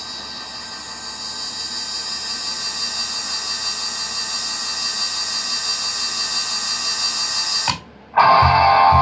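A steady, high-pitched buzzing drone with many overtones, slowly growing louder, that cuts off abruptly near the end. After a brief gap the full band comes in with strummed electric guitar and drum hits.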